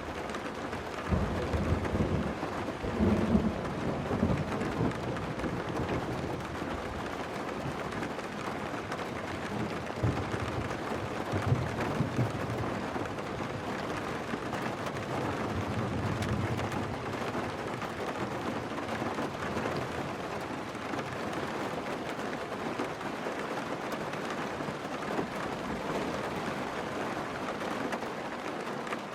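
Steady rain with thunder rumbling over it: low rolls from about a second in and again from about ten seconds in, the loudest claps near three and twelve seconds in.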